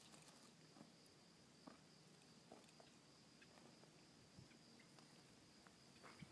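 Near silence: faint outdoor ambience with a few soft scattered ticks and a faint steady high tone.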